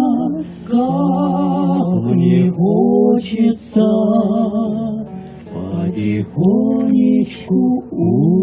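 A woman and a man singing a slow song together to guitar, drawing out long held notes that waver in pitch, with short breaths between phrases.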